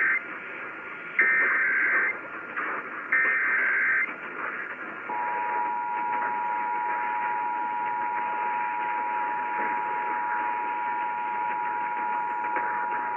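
Emergency Alert System signalling over AM radio static. It opens with the end of one digital header burst and two more screeching bursts of about a second each. From about five seconds in comes the steady two-tone attention signal, a continuous dual-pitched beep. Together they mark the start of a Required Monthly Test alert.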